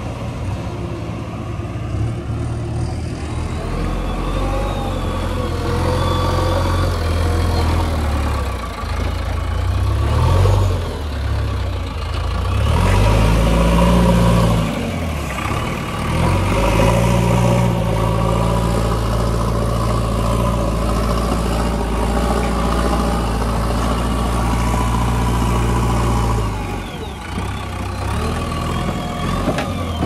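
JCB 3DX backhoe loader's diesel engine working under hydraulic load while digging and loading mud, revving up and down. The revs rise a few seconds in, are highest about halfway through, hold steady for a while, then drop back near the end.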